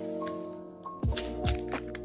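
Lo-fi instrumental background music: sustained keyboard chords, with a kick drum and crisp drum hits coming in about halfway through.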